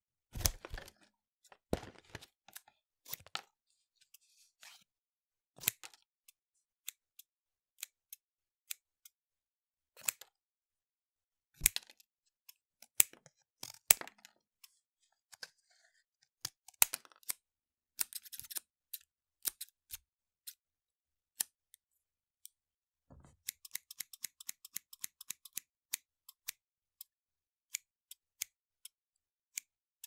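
Scissors cutting: sharp single snips spaced irregularly a second or more apart, then a quick run of many rapid snips in the last third.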